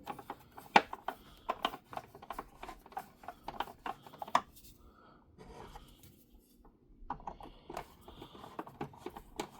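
Small screws being started into the plastic body of a toy Batmobile with a small screwdriver: a run of light, irregular clicks and scratches of plastic and metal, thinning to a quieter stretch about halfway through before picking up again.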